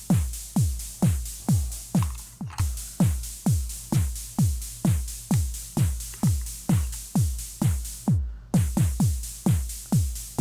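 Background electronic music with a steady, deep kick-drum beat, about three beats a second. It briefly cuts out twice, once a little over two seconds in and again about eight seconds in.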